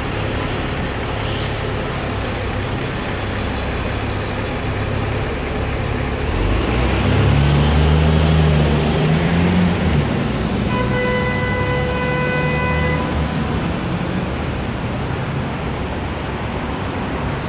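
City street traffic: a steady rumble of engines, with a heavy vehicle passing louder midway. A vehicle horn sounds for about two seconds a little after that.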